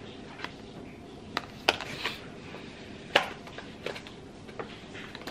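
Scattered light clicks and taps from a small cardboard product box being handled and turned in the hands, the loudest about three seconds in.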